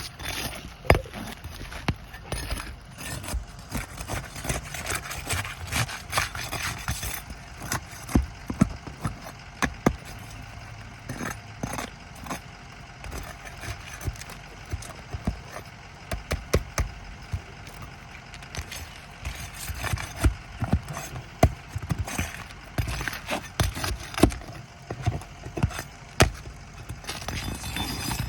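Irregular clicks, cracks and scrapes of asphalt roof shingles being handled and pried loose, over a steady low background noise.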